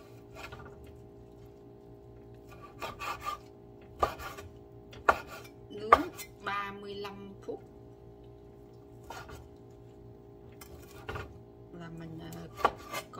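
A large kitchen knife chopping roast pork (char siu) into cubes on a wooden cutting board, in irregular strokes. The sharpest knocks of the blade on the board come around four to six seconds in and again near the end.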